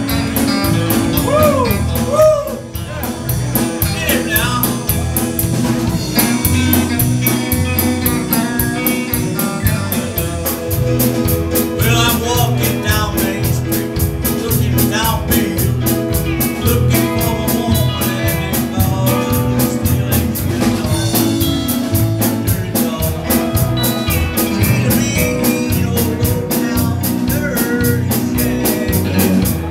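Live rockabilly band playing a song: a drum kit keeping a steady beat under electric guitar and keyboard, with singing at times.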